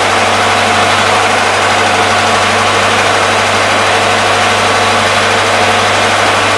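Biogas-fuelled engine generator set running steadily, a loud even machine noise with a constant low hum, while it supplies power at 50 Hz and about 400 V.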